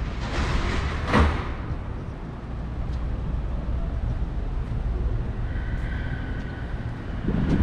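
City street ambience: a steady low traffic rumble, with a brief louder whoosh about a second in and a faint high whine around six seconds in.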